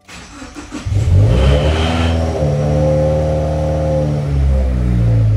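2016 Subaru WRX's turbocharged 2.0-litre flat-four being cold-started: a second of cranking, then it catches and flares to about 2,000 rpm and settles into a fast idle. The owner and his mechanic think the engine's noise sounds like a bent connecting rod.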